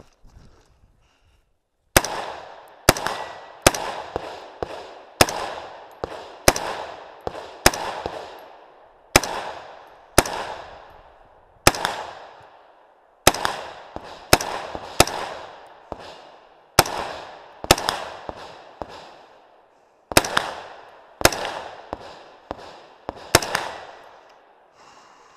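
A DPMS 3G1 AR-15-style rifle in .223 Remington firing some two dozen shots in an uneven rhythm, often in quick pairs, each crack followed by a short echo. The shooting starts about two seconds in, breaks for a second or so twice along the way, and stops a little before the end.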